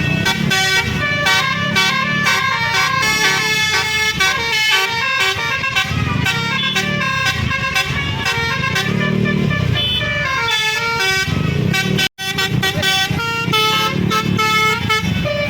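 Bus basuri horn, a multi-tone musical air horn, playing a fast telolet melody note after note, with low pulsing sound underneath. It cuts out for a moment about twelve seconds in.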